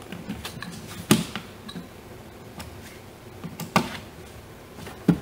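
Hand screwdriver tightening the screws of a plastic windshield cowl: scattered sharp clicks and taps of the tool on the screws and plastic, the loudest about a second in, near four seconds and near five seconds.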